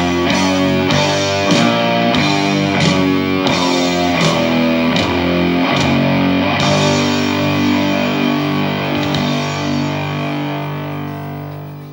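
Rock music with distorted electric guitar, struck in a steady rhythm, then a held chord about halfway through that fades out near the end.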